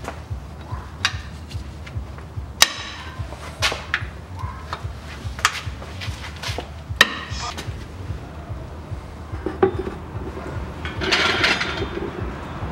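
A steel wrench working the 24 mm plug on a Toyota Noah's rear differential gives a series of sharp, irregular metallic clicks and knocks, the loudest about two and a half seconds in. Near the end a plastic oil basin rustles and scrapes as it is set under the axle to catch the old gear oil.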